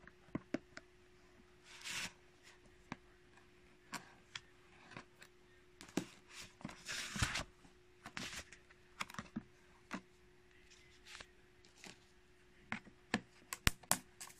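Clear plastic shrink-wrap on a product box being picked at and torn off: scattered crisp crackles and clicks with short rustling tears, the densest cluster near the end.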